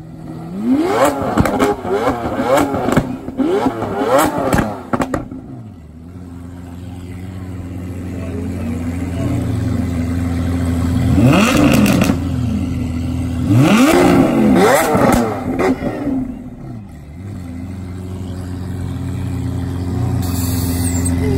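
Sports car engine revved in a run of quick blips, then settling into a steady low idle that slowly grows louder. It is revved hard twice more about halfway through, before dropping back to idle.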